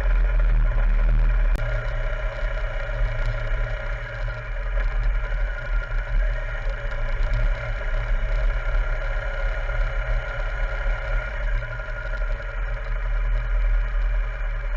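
BMW R 1200 GS Adventure motorcycle's boxer-twin engine running steadily while being ridden, with a strong low rumble throughout.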